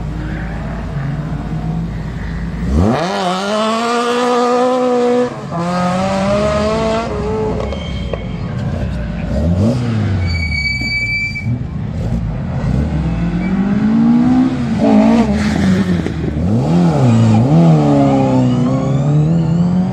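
A Metro 6R4-style rally car at the start line launches hard about three seconds in. Its engine revs up sharply, breaks for a gear change, and it pulls away. Then a Mk2 Ford Escort rally car blips its engine several times in quick revs and launches with a long rising engine note near the end.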